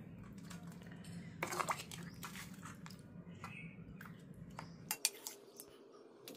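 A serving spoon clinking and scraping against a metal pot and plates as chicken is dished out: scattered faint clinks over a low steady hum that stops about five seconds in.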